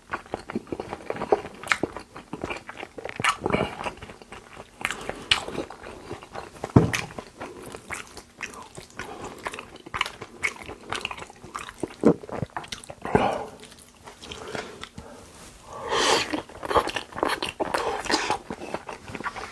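Close-miked mouth sounds of someone eating Korean raw beef dishes (yukhoe and beef sashimi): wet chewing and lip smacking with many small sharp clicks.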